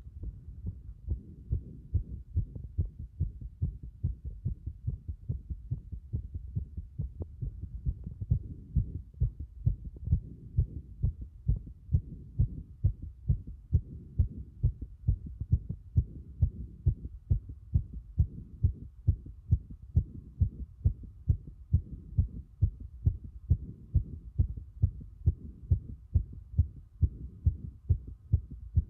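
Fast heartbeat recorded at the cardiac apex: a steady, even run of low heart-sound thumps, a little louder from about eight seconds in.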